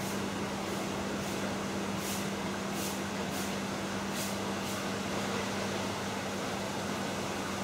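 Steady low hum with an even hiss, and a series of faint short swishes roughly every half second during the first five seconds.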